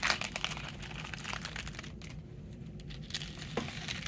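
Foil Pokémon booster pack wrapper crinkling and tearing as it is pulled open: dense crackling for about two seconds, then only a few scattered crinkles.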